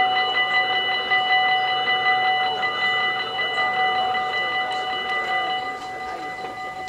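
Electronic level-crossing bells of a Dutch automatic barrier crossing ringing rapidly and steadily, a fast ding-ding at several fixed pitches, warning of an approaching train while the barriers come down. The ringing gradually grows quieter.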